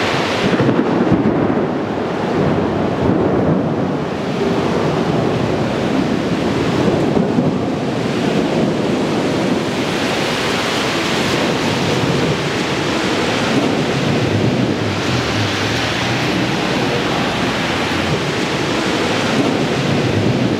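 Thunderstorm: a steady, loud rush of rain and wind with a low rumble throughout and no sharp thunder claps. The hiss grows brighter from about halfway.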